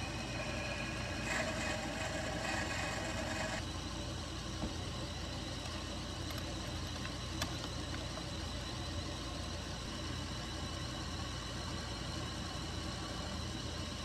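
Cue lathe running steadily with its motor humming. About a second in, a drill bit in the tailstock chuck cuts into the spinning cue part for a couple of seconds. A few faint clicks come later as the bit is changed.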